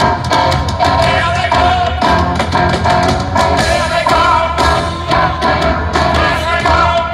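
Rock band playing live with a man singing and a drum kit keeping a steady beat, heard from far back in the audience.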